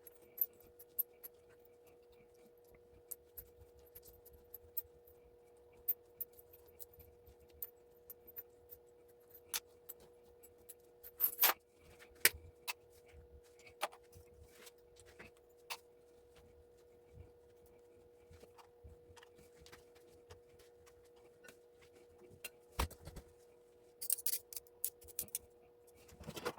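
Scattered small metallic clicks and clinks of loose brass pieces salvaged from plugs being handled, with a short run of rattling near the end. A faint steady hum runs underneath.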